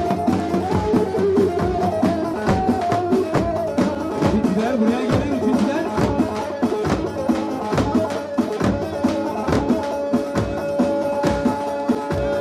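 Live Turkish folk dance music for a halay: davul drums beat a steady rhythm under a wavering melody that settles into a long held note about ten seconds in.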